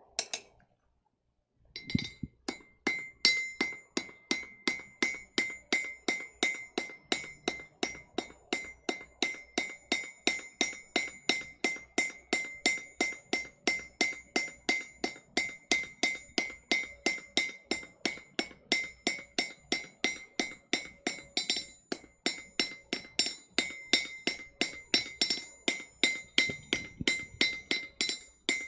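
Blacksmith's hammer striking hot steel on an anvil in a steady run of about three blows a second, each with a high, clear ring, starting after a short pause. The smith is drawing out a mild steel bar to length for a hand-forged nail.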